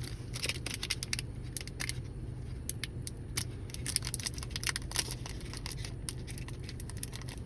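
Foil wrapper of a trading-card booster pack crinkling and crackling in many small irregular clicks as it is worked open; the pack is hard to get into.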